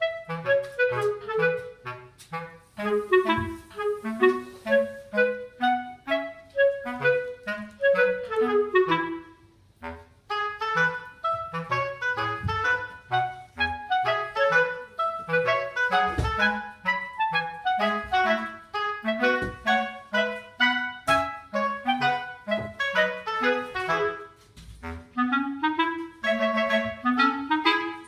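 Background instrumental music: a quick, bouncy woodwind melody over a line of bass notes, with a brief break about ten seconds in.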